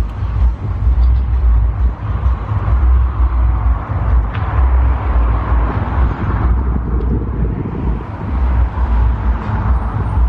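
Outdoor background noise: a low, gusting rumble under a steady hiss.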